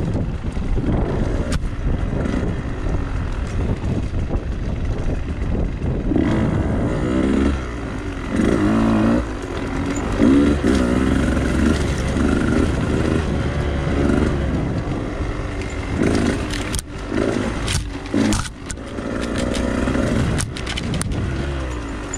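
Two-stroke enduro dirt bike engine revving up and down repeatedly as it is ridden off-road, with several sharp knocks and scrapes in the last third.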